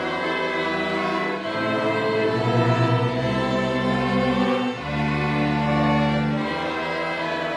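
Conservatory student ensemble playing a slow classical piece: long held chords, with the low notes changing every second or two.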